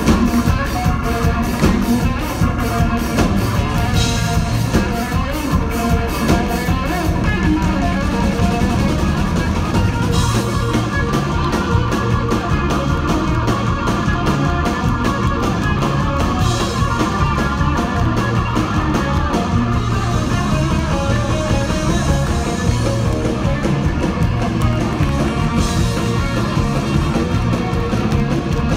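A live band playing a driving gospel-rock song with a fast, steady beat: drum kit, electric guitar and bass, with a trumpet and saxophone horn section. There are no lead vocals.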